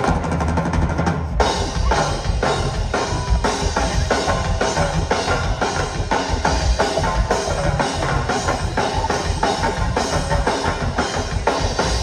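Live rock band in a drum-heavy instrumental passage: drum kit and percussion hammering out a fast beat with bass drum and snare, opening with a rapid roll in the first second or so. Heard from within the audience, as a phone picks up a concert PA.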